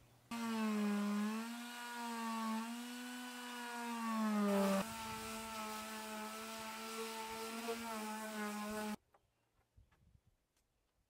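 Electric power sander running against painted wood, sanding old paint off. Its motor hum sags and recovers in pitch as it is pressed into the work, and shifts once about five seconds in. It starts suddenly just after the start and cuts off sharply about nine seconds in.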